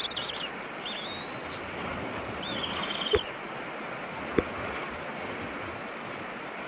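Bald eaglet giving thin, high begging peeps, three calls in the first three and a half seconds, one rising and the last held level, over a steady hiss. Two sharp knocks come about three and four and a half seconds in.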